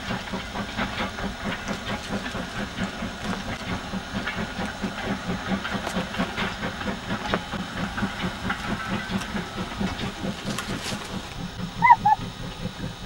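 Steam tank locomotive working hard with a goods train, its exhaust chuffing in a quick, even beat. Two short whistle toots sound near the end.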